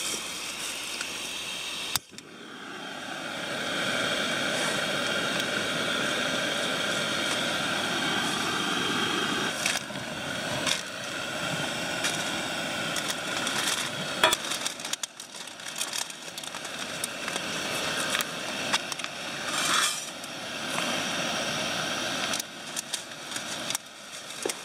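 Jetboil MiniMo gas stove burner hissing steadily. It swells up about two seconds in, as if just lit or turned up. Later come short clinks and knocks of metal plates and a bowl being handled.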